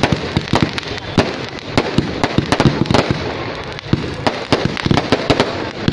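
Fireworks going off: a rapid, irregular string of sharp bangs and pops over a steady hiss, from ground fountains spraying sparks and aerial shells bursting overhead.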